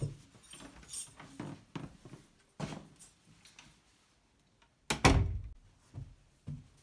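An interior door's knob is turned and the door opened, with a few clicks and knocks. About five seconds in comes a single loud bang, the loudest sound, followed by a few soft thuds.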